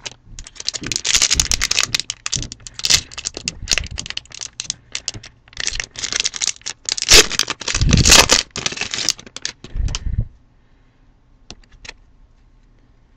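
Foil trading-card pack wrapper being crinkled and torn open by hand, a dense run of crackling that stops about ten seconds in.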